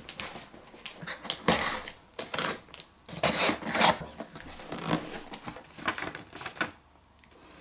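Parcel packaging being handled and opened: irregular bursts of rustling and crinkling with small clicks, fading to quiet near the end.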